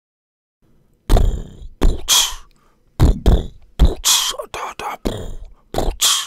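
A person beatboxing: a run of low thumps and hissing snare-like sounds, starting about a second in.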